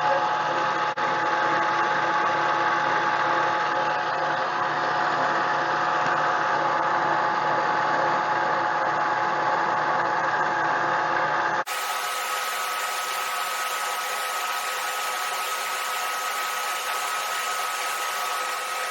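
Harbor Freight mini lathe running with a steady motor whine while turning a polycarbonate plug. About twelve seconds in, the sound cuts abruptly to a quieter, thinner whine with one high held tone.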